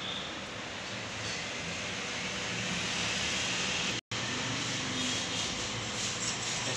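Steady rushing background noise, broken by a momentary silence about four seconds in.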